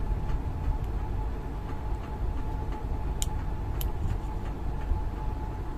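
Steady low background rumble with two faint, light clicks, the first a little after three seconds in and the second just under four seconds in.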